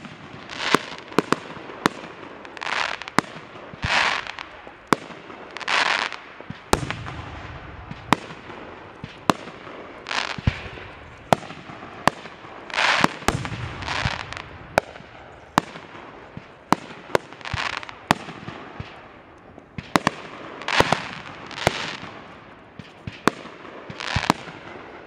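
Fireworks going off: a rapid, irregular string of sharp bangs mixed with half-second rushing bursts, and a couple of deeper booms.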